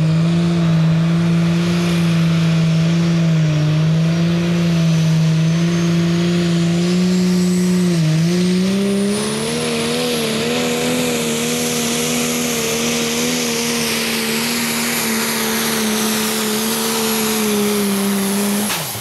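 Turbocharged diesel engine of a Case IH 335 Pro Stock pulling tractor running at high revs, with a high turbo whine that rises over the first several seconds. About eight seconds in the revs dip briefly, then the engine holds higher and steady under load as the tractor pulls the sled.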